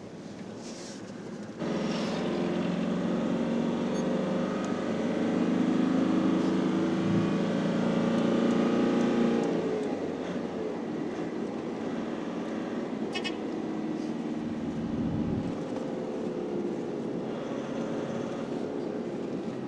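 Vehicle engine running under load, heard from inside the cabin while driving. It comes in suddenly about two seconds in, pulls hardest through the middle, then eases off about halfway through and settles to a lower, steady running sound.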